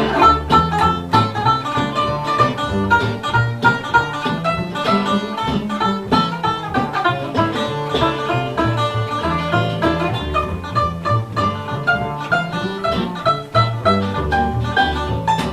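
Live acoustic string band playing an instrumental break: banjo and guitar picking a quick run of notes over a steady bass line, with a bowed string instrument such as a fiddle underneath.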